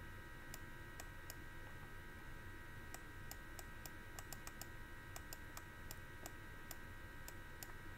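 Faint, irregular clicks of a computer mouse button, in small clusters of a few a second, as each pen stroke is started and ended while handwriting on screen. A steady faint hiss lies underneath.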